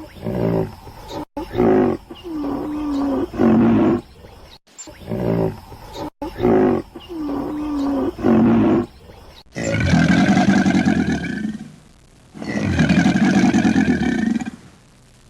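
Animal calls: a series of short pitched calls in the first half, then two long, rough calls, each about two and a half seconds, in the second half, with abrupt cuts between segments.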